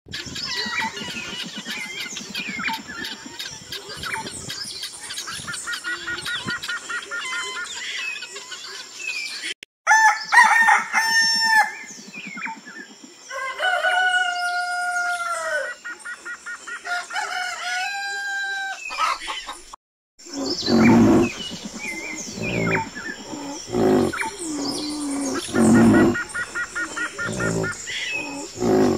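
Helmeted guineafowl calling, with a fast rattling chatter about six seconds in. After a cut, a rooster crows among clucking chickens. After another cut, a run of deep, low grunts comes, with birds chirping behind them.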